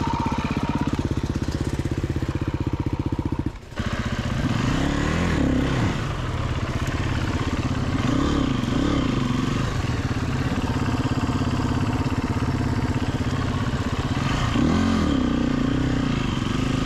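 Dirt bike engine running at a steady speed, with a brief break about three and a half seconds in, then revving up and down several times as the bike is ridden.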